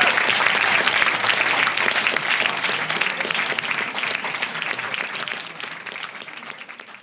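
Small audience applauding, the dense clapping fading out over the last few seconds.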